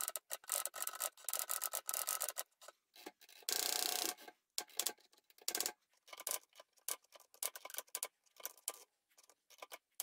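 Carriage of an Olivetti M20 typewriter sliding along its rails, giving a rasping, rubbing sound in many short bursts, with one longer unbroken stretch about three and a half seconds in.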